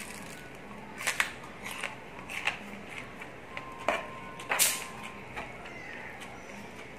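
Crunchy chewing of a raw bitter gourd close to the microphone, with several short, sharp crunches, the loudest about a second in and past the middle, along with a spoon and fork scraping and clinking on a ceramic plate.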